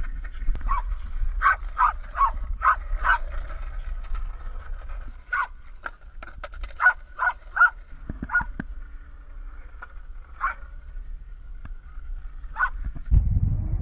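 Small dog yipping and barking in short, sharp calls, a quick run of them at first and then in small groups and singly, over a low steady rumble.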